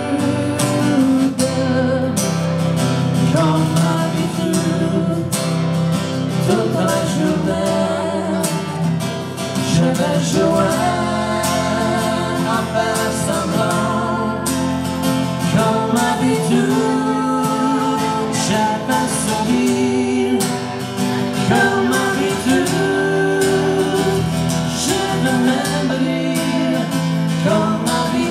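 Live acoustic music: a strummed acoustic guitar with a continuous melody line carried over it.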